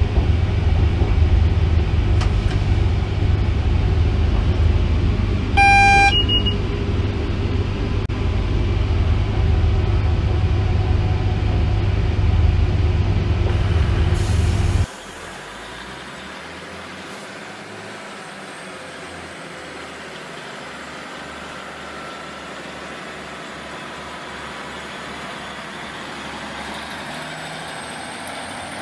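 Cab-interior running noise of a Class 90 electric locomotive: a loud, steady rumble, with a short two-tone horn blast about six seconds in. About halfway through it cuts off abruptly to a much quieter steady background.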